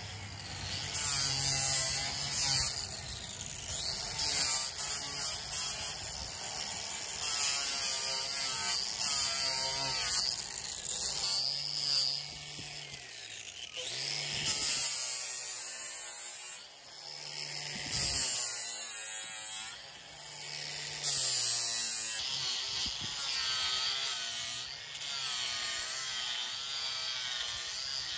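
Small electric angle grinder with a sanding disc grinding down the edge of a one-piece double-sink vanity top, its whine wavering up and down as it is pressed into the material; near the end a round-pad sander buzzes over the edge instead. The top is being shaved down because the vanity is too tight to fit its space.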